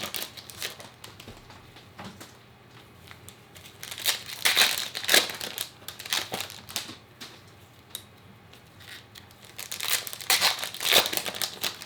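Plastic trading-card packaging and sleeves crinkling and rustling as they are handled, in two louder bursts about four and ten seconds in.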